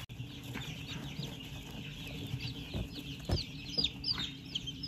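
Brooder of newly hatched chicks peeping: many short, high cheeps overlapping in a continuous chorus. A couple of soft knocks stand out about three seconds in.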